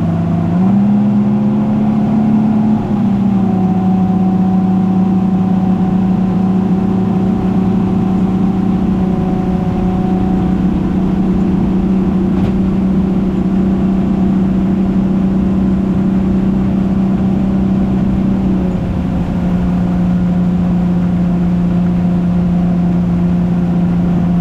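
Yamaha 300 V6 four-stroke outboard running under way with the boat on the plane. The engine note rises about half a second in, drops back a little around three seconds, then holds steady and eases slightly lower near the end as the throttle is settled at cruising speed.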